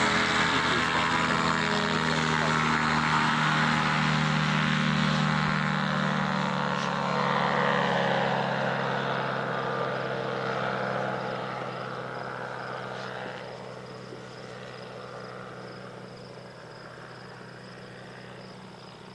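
Poor Boy ultralight airplane's engine and propeller running at full power on the takeoff and climb-out. The pitch drops a little about eight seconds in, and the sound then fades steadily as the plane flies away.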